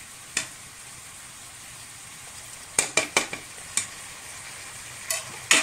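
Onions, shallots and crushed garlic sizzling steadily in hot coconut oil in a pressure cooker, with a few sharp knocks of the spatula and plate against the pot: a cluster about three seconds in and the loudest near the end.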